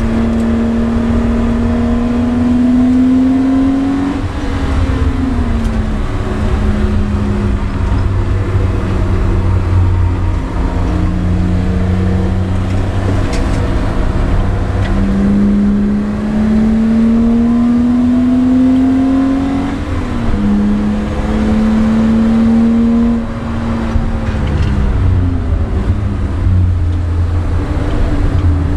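BMW E30 325i's 2.5-litre straight-six heard from inside the cabin, working hard on track: the engine note climbs steadily in pitch under acceleration and drops back sharply at gear changes and lifts, about a second before the halfway point and again near the end, over a constant low road and wind rumble.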